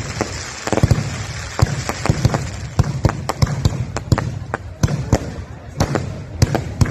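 Fireworks display: a rapid, irregular string of sharp bangs and cracks, several a second.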